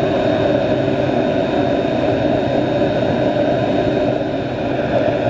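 Electric blower fan of a diesel-fired burner on a drum-built metal-casting furnace, running steadily with a rush of air and a faint high whine. The furnace is heating up, the diesel vaporizing and smoking before it flashes into flame.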